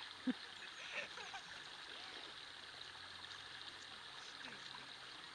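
Faint, steady rush of running water, with a brief low thump about a third of a second in.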